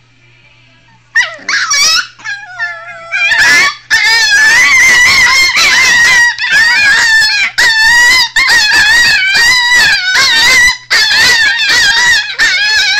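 American Hairless Terrier puppies 'talking': long, wavering, high-pitched howls. They start about a second in and run almost without a break from about three seconds in, with short pauses.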